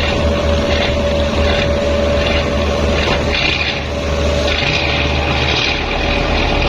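Boat engine running steadily with a pulsing low hum, over the wash of water around the hull; the low pulsing changes character near the end.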